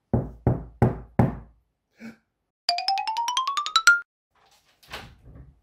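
Four sharp knocks on a wooden front door, about a third of a second apart. A second later comes a quick rising run of about a dozen musical notes, then a few soft footsteps.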